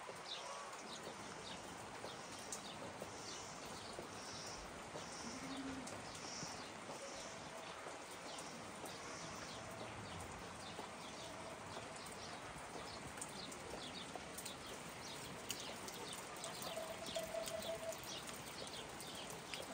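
Faint, irregular chirps of small birds.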